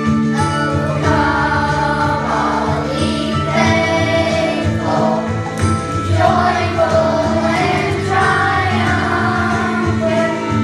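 Children's choir singing with instrumental accompaniment.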